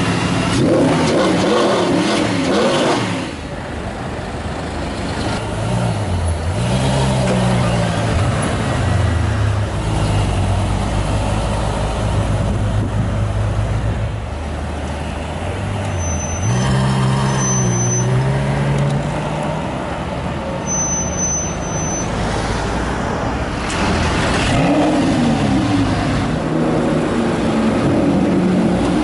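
Supercar engines revving and pulling away one after another on a city street: a Mercedes SLS AMG's V8, a Ferrari F12's V12 and a Lamborghini Gallardo's V10, each rising and falling in pitch as it accelerates. Short high electronic beeps come in twice in the middle.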